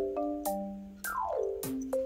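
Background music: an upbeat game-style tune of short, separate notes, with a quick falling run of notes about a second in.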